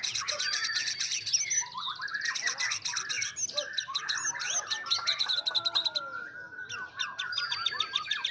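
White-rumped shamas singing over one another: fast rattling trills and clear whistled phrases, with no break.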